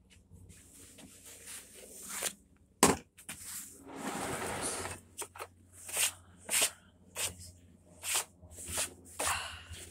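Handling noises on a walk-behind lawn mower: a sharp knock about three seconds in, a longer rustling scrape a second later, then a run of short scrapes and taps.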